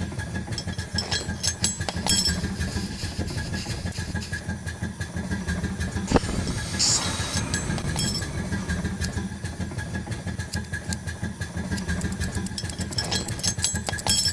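Emulated steam boat engine sound: fast, uneven chugging with rattles and a thin steady whine, meant to sound like a machine falling apart. A sharp knock comes about six seconds in, followed by a short hiss.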